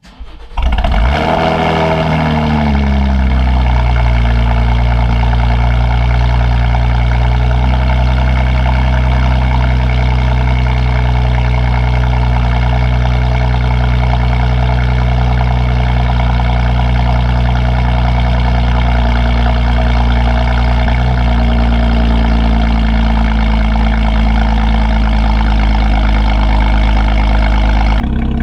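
2016 Chevrolet Camaro RS with a Borla ATAK axle-back exhaust starting up: the engine catches with a loud flare of revs that falls away over about two seconds, then settles into a steady idle.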